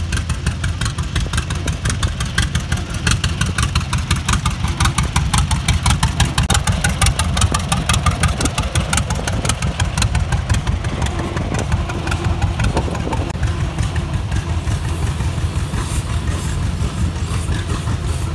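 Antique engine running with a rapid, even exhaust beat over a low rumble.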